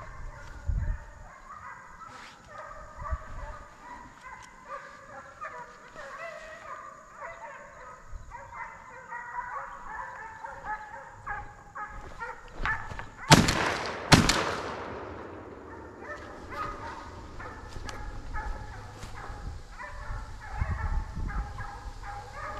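A pack of deer hounds baying on a running deer. About thirteen seconds in come two loud, close shotgun shots a second apart, the second with an echoing tail.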